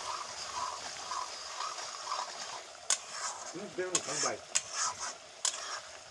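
Chicken frying in an iron kadhai, sizzling steadily while a spoon stirs and scrapes through it. In the second half there are several sharp knocks of the spoon against the pan.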